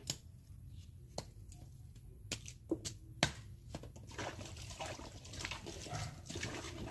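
A handful of sharp knife clicks on a fresh bamboo shoot as it is cut and peeled. About four seconds in they give way to water splashing and sloshing as the peeled shoot is washed in a basin.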